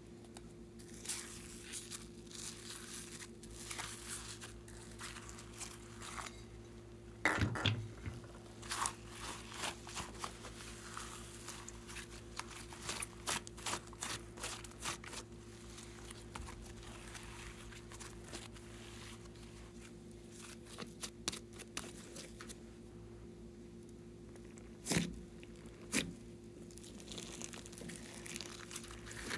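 Hands squeezing and stretching glossy slime mixed with glitter and sequins: a steady run of small crackling, popping clicks, with two louder pops, one about seven seconds in and one near the end.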